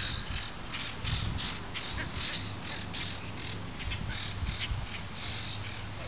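Small birds chirping in short, quick, irregular calls, over a faint steady low hum.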